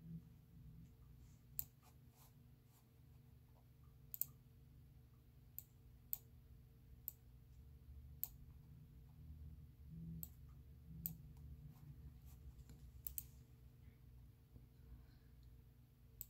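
Sparse, irregular computer clicks, about ten, as outline nodes are clicked and dragged in a drawing program, over a faint low hum.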